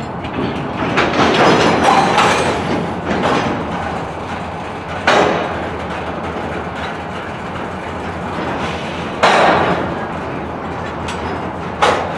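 Freight cars rolling slowly through a rail yard, with steady wheel-on-rail rumble that swells in the first few seconds. Three sharp metallic bangs ring out about five, nine and twelve seconds in.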